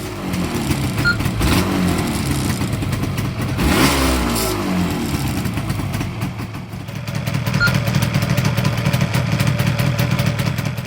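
Yamaha RZ250's two-stroke parallel-twin engine running, revved up about four seconds in and falling back, then running steadily with a fast pulsing beat.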